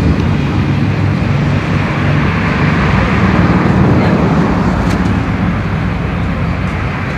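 Steady street traffic noise: vehicle engines running and tyres on the road, with a low hum under a wide din.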